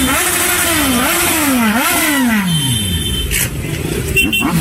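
Sport motorcycle engine revved in quick throttle blips, the pitch jumping up and sagging back about four times, the last time falling away slowly to a low idle about two and a half seconds in. It goes quieter for about a second and a half, then is revved once more near the end.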